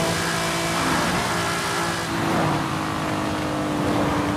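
Race car engine sound effect: a steady, sustained engine note that sags slightly in pitch, over a constant rushing noise.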